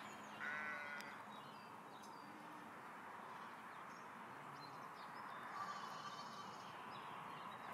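A flock of sheep grazing in an open field: one short wavering bleat about half a second in, then soft outdoor ambience with a few faint bird chirps.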